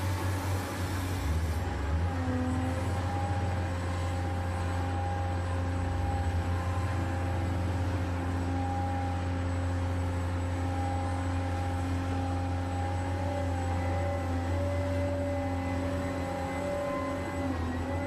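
Huina 1580 RC excavator's electric motors running under load as it works its arm and bucket: a steady low hum with several thin whining tones that shift slightly in pitch about two seconds in and near the end.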